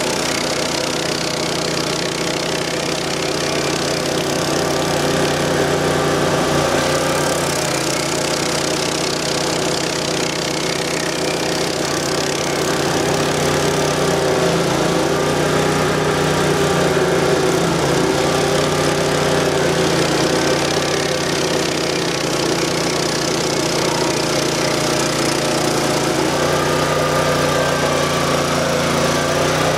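1997 Vermeer SC252 stump grinder working a stump. Its 20 hp Honda V-twin gas engine runs steadily under load while the spinning Greenwheel cutter wheel grinds into the wood.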